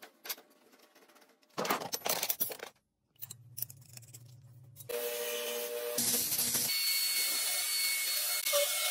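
Metalworking by hand and machine on steel: a few quiet clicks, then about a second of loud rasping strokes from hand-tool work such as filing. From about six seconds a small metal-cutting bandsaw runs steadily with a high whine as it cuts a steel ball.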